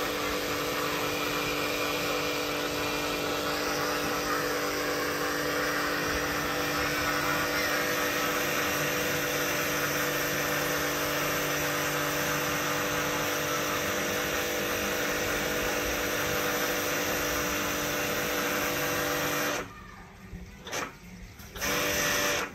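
Small portable electric pressure washer running steadily, its pump motor humming under the hiss of the water jet spraying a motorcycle. Near the end it cuts out twice for a moment, running briefly in between, then starts again.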